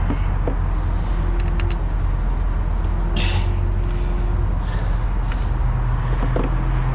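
Heavy vehicle's diesel engine idling steadily, with a few light metallic clicks from bolts and tools being handled at the axle cover.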